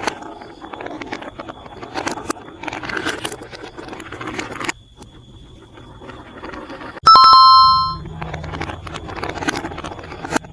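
Marbles rolling and clattering along a plastic building-block marble run track, with many small clicks. About seven seconds in, a bell rings once loudly for about a second, then the rolling rattle carries on.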